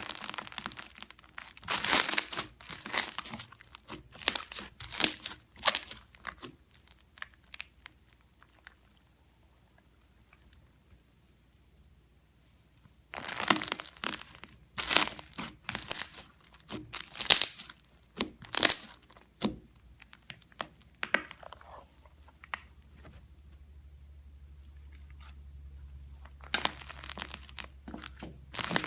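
Slime being squeezed and pressed by hand close to the microphone, giving runs of rapid crackling and crunching pops. There are three bursts of handling, with quiet gaps of several seconds between them.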